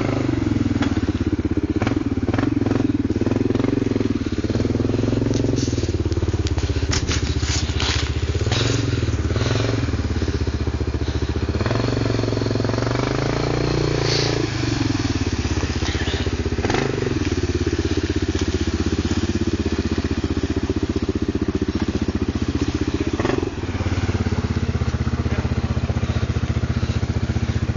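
A vehicle engine running under load while driving off-road, its pitch rising and falling with the throttle. The revs climb for a couple of seconds about twelve seconds in, then drop. Sharp knocks and crackles come between about seven and nine seconds in.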